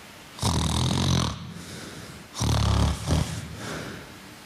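A person snoring evenly, one snore with each breath: two snores about two seconds apart, each lasting about a second. This is uncomplicated snoring, regular and without pauses in breathing.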